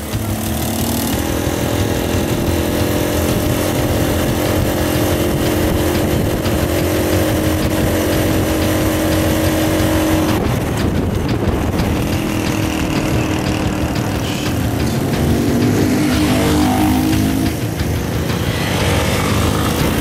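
Motorcycle engines running with a steady note. The engine note changes about halfway through.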